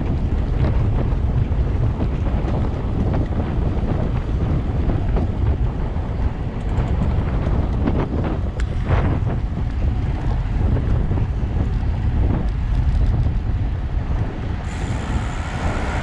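Wind buffeting the microphone of a camera on a road bike riding at speed: a loud, steady low rumble.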